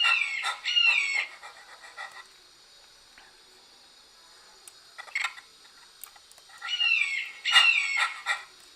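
Eagle cry sound effect played back through a hall-style reverb: runs of short, high-pitched falling calls at the start and again near the end, with a single call about five seconds in.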